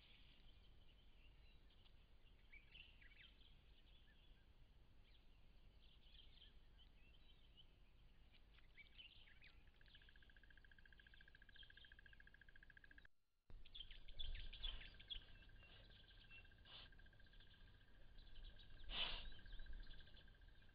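Faint birds chirping now and then. After about ten seconds a steady high trill joins them, and a single sharp knock sounds near the end.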